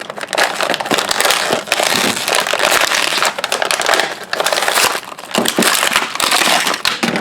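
Toy packaging being torn open: plastic and cardboard crinkling and crackling, with many quick snaps and a few brief pauses.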